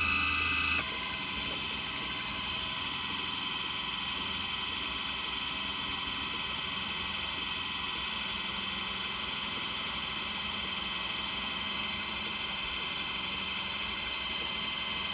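Small electric motor of a mini bench drill press running with a steady whine, its bit drilling into a pocket knife pin. The tone shifts slightly under a second in, then holds even.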